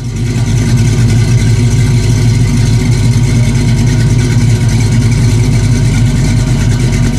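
Classic Chevrolet car engine idling steadily through its exhaust, a loud, fast, uneven rumble heard from behind the tailpipes.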